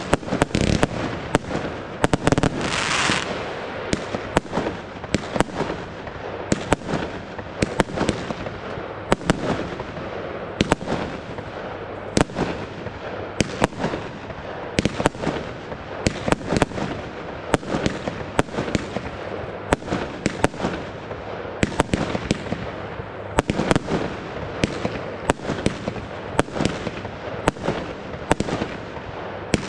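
WECO 'Far Away' compound firework (several linked cakes) firing continuously: a steady stream of shots launching and bursting, about two a second, over a constant hiss, with a brief louder hiss about three seconds in.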